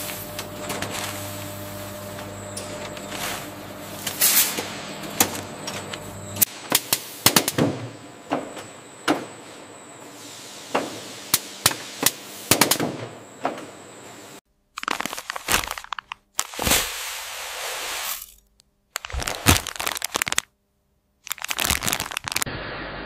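Factory machinery clatter: irregular sharp clanks and knocks, over a low steady hum for the first six seconds or so, broken by several abrupt drop-outs to silence in the second half.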